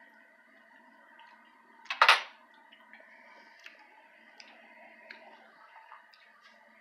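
A metal spoon clinks sharply against a dish once, about two seconds in, followed by a few faint small clicks over a low, steady background hum.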